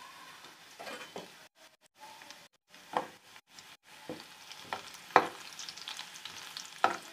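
Chopped garlic and curry leaves sizzling in hot ghee for a tadka, stirred with a wooden spatula that knocks and scrapes against the metal pan several times, loudest about five seconds in. The sound drops out briefly a few times in the first four seconds.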